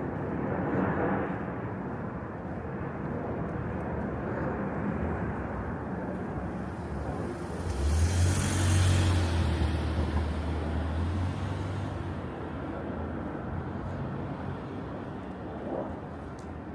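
City street ambience with a steady low rumble. About eight seconds in, a car passes close by: its engine hum and tyre hiss rise quickly, peak, and fade over about three seconds.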